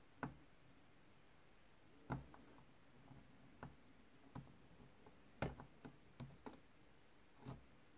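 Faint, irregular metallic clicks and ticks of a lock pick working the pin stack of an ASSA oval cylinder under light tension, about ten in all, with a quick run of them a little past the middle.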